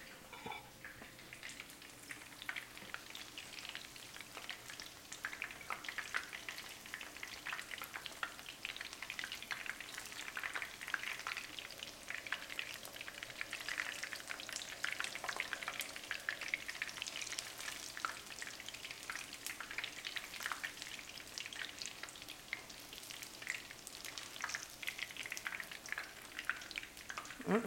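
Battered chicken nuggets deep frying in hot vegetable oil in a frying pan: a steady sizzle with dense, fast crackling pops.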